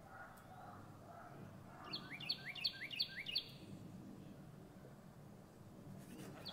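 A bird calling: a quick run of five chirps, each sweeping upward, about two seconds in, over faint low background noise.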